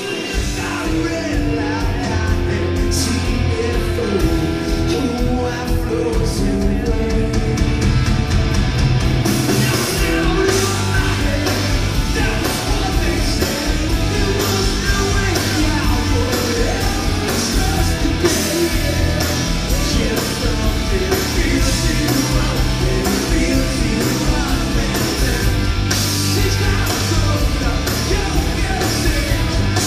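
Rock band playing loud live music with a singer through the venue's PA, heard from within the crowd. The cymbals and drums come in harder about nine seconds in.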